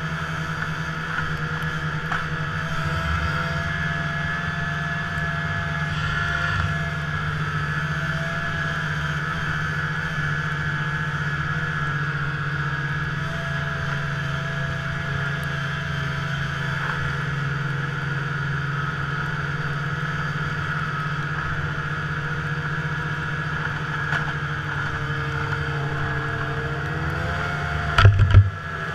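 Snowmobile engine running steadily while riding along a trail, its pitch rising near the end. A couple of loud thumps come just before the end.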